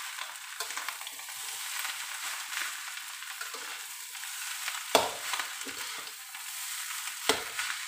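Fried rice sizzling in a hot metal wok as a metal spatula stirs and scrapes through it. The spatula knocks sharply against the wok twice, about five seconds in and again two seconds later.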